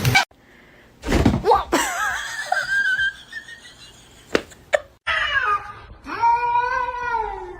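A cat yowling: a long drawn-out call that starts high, slides down and then holds steady, beginning about five seconds in. Earlier there is a short noisy thump and a brief wavering cry.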